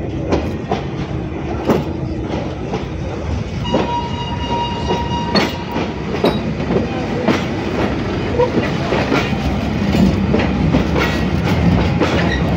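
Vintage Italian State Railways 'Centoporte' passenger carriages rolling slowly past at close range: a low rumble with irregular clacks of the wheels over the rail joints. It gets louder toward the end. A steady high tone sounds for about two seconds around four seconds in.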